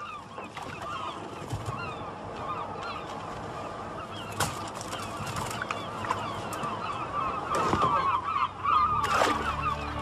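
A crowd of gulls calling over and over, their short cries overlapping as they gather over a fishing boat for fish thrown back into the sea.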